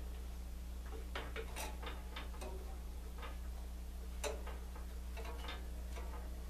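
Faint, irregular clicks and ticks as the blade-tension knob of a 4x6 metal-cutting band saw is turned by hand, tightening a freshly refitted blade.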